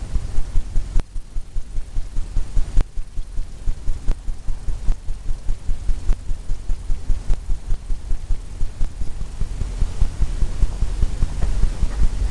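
Paintbrush tapping against a stretched canvas: a steady run of dull low thuds, about three a second.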